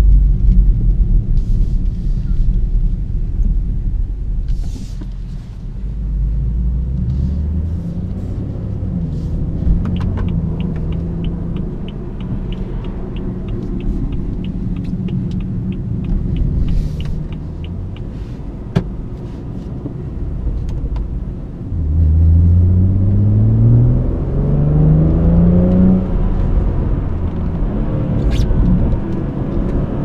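In-cabin sound of a BMW 340i's turbocharged 3.0-litre inline-six, cruising with steady road and engine rumble. For a while an even ticking of about two or three a second plays over it, like the turn-signal indicator. About twenty-two seconds in, the engine is floored and its note climbs steeply, drops once at an upshift, and climbs again.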